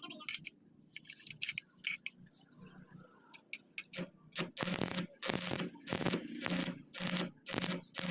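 Scattered light clicks and taps, then about halfway in a run of regular scraping strokes, roughly two a second.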